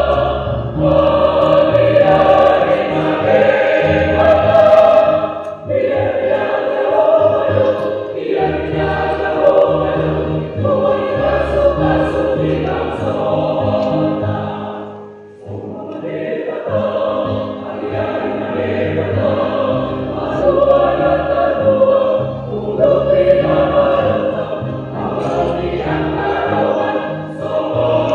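Mixed church choir of men's and women's voices singing a hymn in parts, in Batak Toba, phrase after phrase, with a short breath between phrases about fifteen seconds in.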